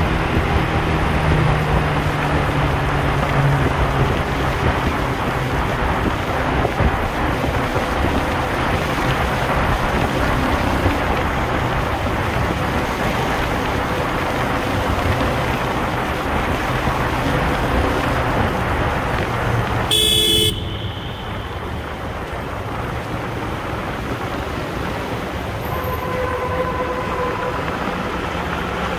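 Wind rush and the single-cylinder engine of a Yamaha R15 V2 motorcycle riding through a road tunnel while slowing down, with steady traffic noise around it. About two-thirds of the way in there is a sudden brief crackle, after which the noise is quieter. Near the end a vehicle horn gives a short toot.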